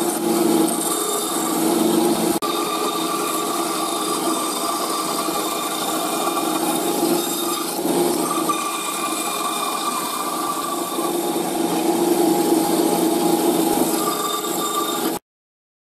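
A power tool running while working wood: a steady motor hum under a rasping cutting or abrading noise, which cuts off abruptly near the end.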